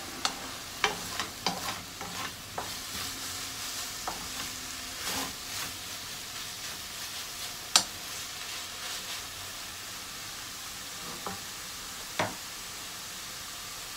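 Peeled eggplant strips sizzling steadily in a frying pan while a wooden spatula stirs and tosses them, with scrapes and sharp knocks against the pan, the loudest about eight seconds in. The stirring eases off after about nine seconds, leaving the sizzle with two more knocks near the end.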